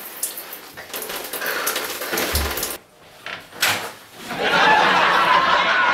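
Shower water running as a hiss, broken briefly just before the middle, with a couple of knocks of a door, then running louder again.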